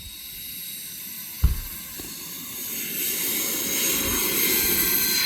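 Electric ducted-fan jet whine from a Freewing F-14 Tomcat RC model on its takeoff run, a steady high whine that grows louder from about halfway through as the jet speeds up and comes closer. A single sharp thump about a second and a half in.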